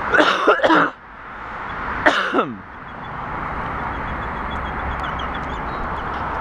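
Two short vocal cries, the second a falling one about two seconds in, then a steady rushing road noise.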